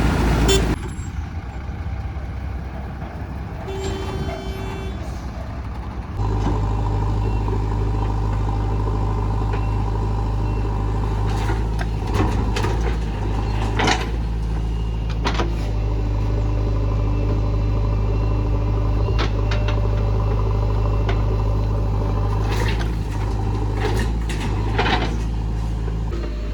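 Heavy diesel engine of earthmoving machinery running steadily at a working load, with several sharp knocks and clanks scattered through. The first six seconds are quieter, with a short beep-like tone about four seconds in, before the engine drone comes in loud.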